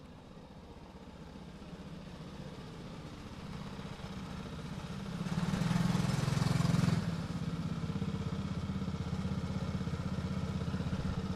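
Go-kart engines running, growing louder as the karts approach and loudest about five to seven seconds in as they pull up close, then idling steadily.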